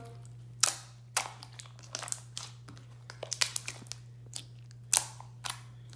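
Green slime with plastic beads mixed in being squeezed and pressed by hand, giving irregular crunchy clicks and pops, one sharper pop under a second in and another near five seconds.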